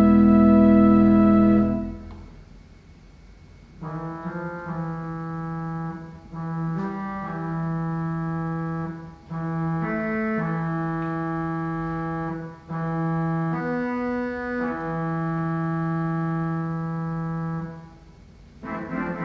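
Church pipe organ: a loud full chord is released about two seconds in and dies away in the church's reverberation. Then a quieter stop plays a slow line of long held notes with short breaks between them, and near the end a busier passage begins.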